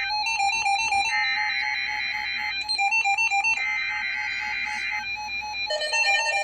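Weather-radio emergency alert data bursts (the digital header of the alert), a harsh buzzing screech repeated in bursts about a second and a half long with about a second between them. They play over music with a quick, plinking keyboard melody.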